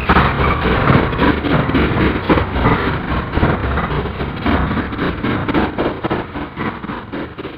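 Dense noise from an experimental sound performance: a low hum under rapid crackling that slowly fades.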